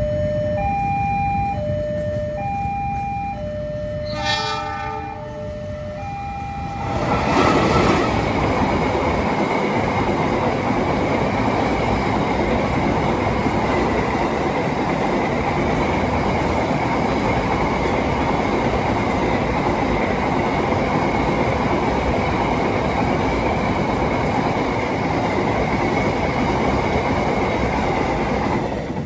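Electronic warning bell of a railway level crossing alternating between two tones, with a short train horn blast about four seconds in. From about seven seconds a freight train of flat wagons runs past at speed: a loud, steady rumble of wheels on rails with a steady high whine, covering the bell until near the end.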